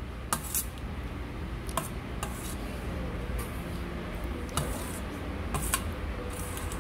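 Utensils clinking against dishes at a meal: a handful of short, sharp clinks at irregular spacing over a steady low room hum.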